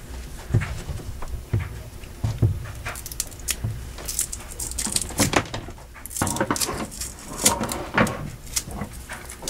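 Tape being unwound and peeled off the end of a braided synthetic rope by hand, with irregular crackles and rope-handling rustles.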